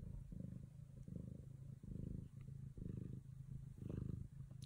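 Mother Bengal cat purring while nursing her kittens: a low, steady purr that swells and eases with each breath in and out, about twice a second.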